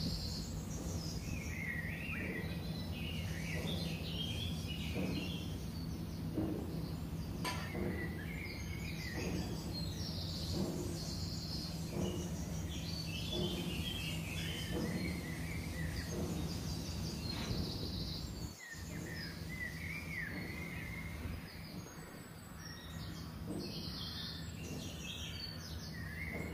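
Outdoor ambience: birds chirping repeatedly over a steady low hum, with a few faint knocks.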